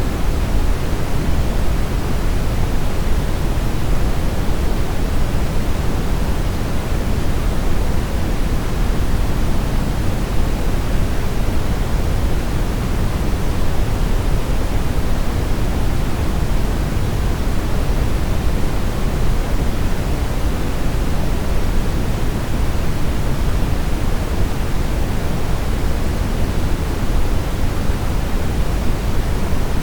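Brown noise: a steady, deep rushing hiss, strongest in the low end and fading toward the highs, with no change throughout.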